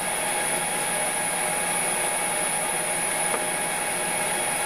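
6040 CNC router's X-axis stepper motor driving the table along its screw: a steady mechanical running noise during a one-inch calibration move.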